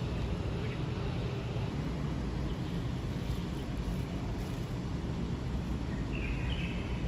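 Outdoor ambience dominated by a steady low rumble, with a single short bird call about six seconds in.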